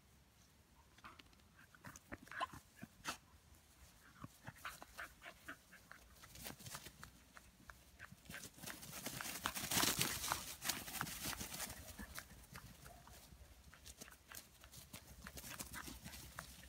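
Irish terrier puppies playing and running on grass: short puppy vocal sounds among scattered rustles and patters. A louder noisy rustle swells for a couple of seconds about ten seconds in.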